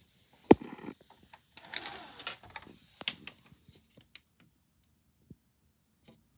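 Handling noise from a phone being moved about: a sharp knock about half a second in, then a second or so of rustling and a few scattered light clicks.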